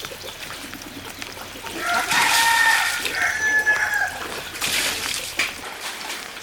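A rooster crowing once: one drawn-out crow of about two seconds, starting about two seconds in.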